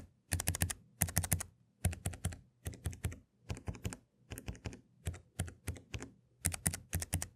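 Keys on a Keychron K3 v2 low-profile optical keyboard being pressed in quick runs of several strokes, a little over one run a second. This is a side-by-side listening test of three unlubricated switches against three lubricated ones.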